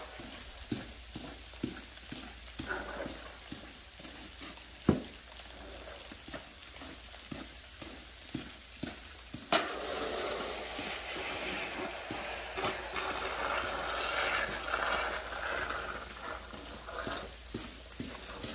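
Snow shovel scraping across an icy concrete driveway: a hard strike about ten seconds in, then several seconds of scraping. Underneath is a hiss of falling sleet with light ticks about twice a second.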